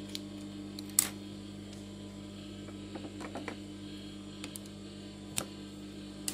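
Steady electrical mains hum, with a sharp snip about a second in as the sewing thread is cut, then a few lighter clicks and fabric handling.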